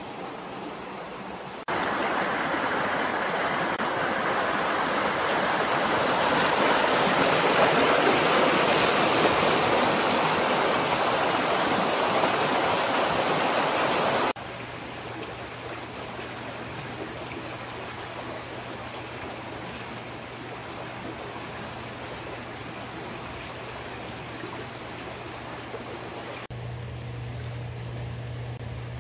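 Water rushing and splashing over rocks, a loud steady rush that starts and stops abruptly. After it comes a quieter steady hiss with a low hum.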